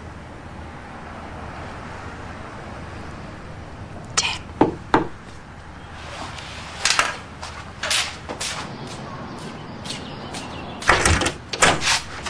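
Knocking on a door: three quick knocks about four seconds in, more knocks a few seconds later, then a louder cluster of knocks and clunks near the end as the door is opened.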